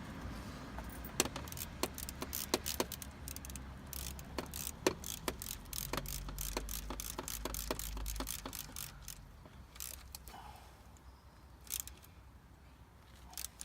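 Socket ratchet clicking in quick runs as the water pump bolts are turned in, with small metallic clinks of tools. The clicks thin out over the last few seconds.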